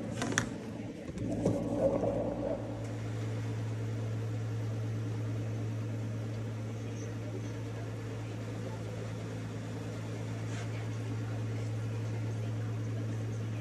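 Steady low mechanical hum, with a few knocks and handling noises in the first two or three seconds.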